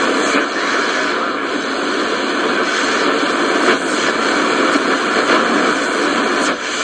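Steady shortwave static hissing from the speaker of a Sony ICF-F12S portable radio, with no station coming through as the dial is tuned between stations. A few faint crackles sit in the hiss.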